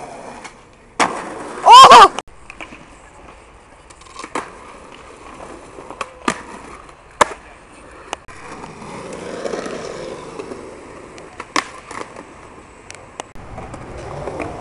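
Skateboard on concrete: sharp clacks of the board popping and landing several times, with stretches of wheels rolling. About two seconds in there is one very loud, brief high-pitched screech.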